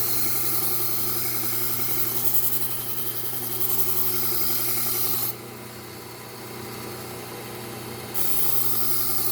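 Bucktool slow-speed belt sander running with a fine Trizact A30 (about 600 grit) belt, a knife edge held against it in two grinding passes: one lasting about five seconds, then a lull with only the motor hum, then a second pass starting about eight seconds in. The fine belt is refining the edge after the burr has been raised.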